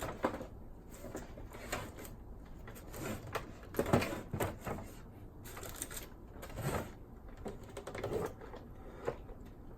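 Irregular small clicks, knocks and rattles of hands handling a plastic boombox case and its internal parts during disassembly, with a louder knock about four seconds in.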